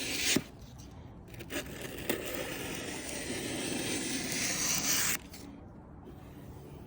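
Aluminium-oxide plumber's emery cloth scraping along the cut edge of a Tesla Cybertruck's stainless steel body panel, sanding the rough edge smooth. A short stroke ends just after the start, then one long rasping stroke runs from about one and a half seconds to about five seconds.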